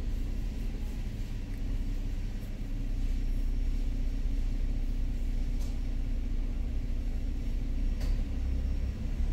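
2007 Nissan Maxima's engine idling, a steady low rumble heard from inside the cabin.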